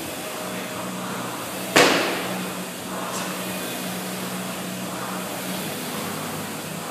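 A single sharp clank, ringing briefly, about two seconds in as a barbell loaded with bumper plates is snatched from the hang and caught overhead. A steady low hum runs underneath.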